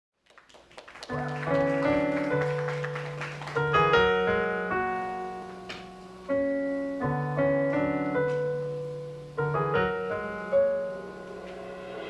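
Stage keyboard with a piano sound playing a slow intro of full sustained chords, a new chord struck every two to three seconds and each ringing out and fading. It fades up from silence in the first second.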